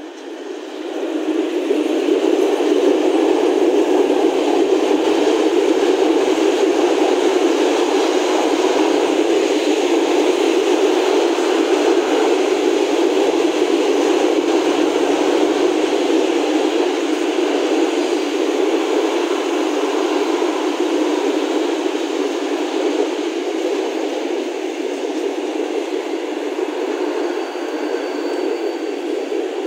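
Freight train of open coal wagons hauled by an ET22 electric locomotive passing close by: a loud, steady rolling noise of steel wheels on the rails that builds up over the first couple of seconds as the train arrives.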